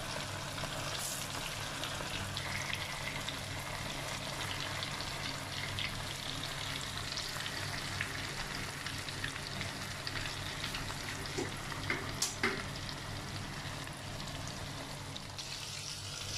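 Oat-coated chicken pieces shallow-frying in hot oil in a pan: a steady sizzle and crackle of the oil, with a few light clicks near the end.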